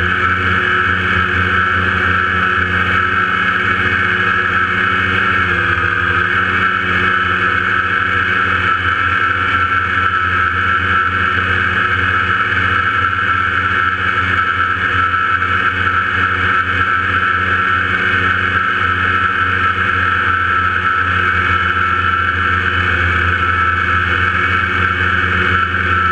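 Steady whine of a scratch-built tricopter's three electric motors and propellers in flight, recorded by the onboard camera, with a small shift in pitch about five and a half seconds in.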